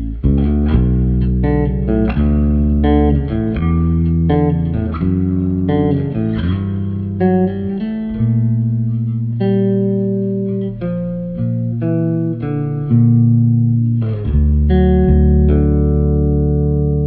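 Ibanez four-string electric bass played solo with the fingers: a slow, melodic line of plucked notes and chords that ring into one another, settling on a long held chord near the end.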